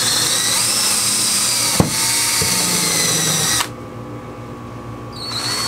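Cordless drill running steadily as it bores a starting hole down through plywood into an aluminum boat rib, with a sharp click partway through. It stops, then runs again briefly near the end.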